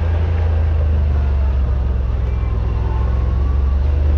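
Yamaha Wolverine RMAX side-by-side's parallel-twin engine running steadily under way on a dirt trail, a low, even drone heard from inside the cab.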